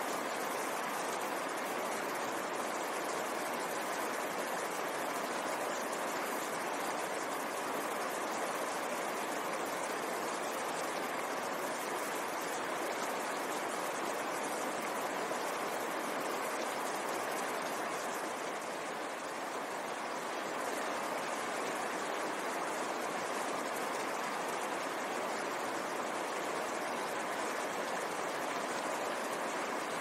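Fast, shallow mountain stream rushing and splashing over boulders: a steady, unbroken rush of water.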